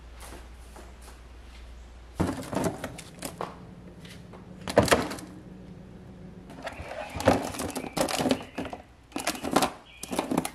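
Plastic food-storage containers with clip-lock lids knocking and clacking as they are set down and slid into a freezer door bin, a series of sharp hard-plastic knocks.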